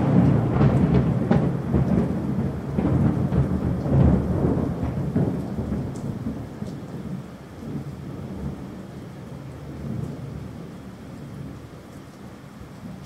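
A thunderclap rolling and rumbling loudly, fading slowly over about ten seconds, over steady rain.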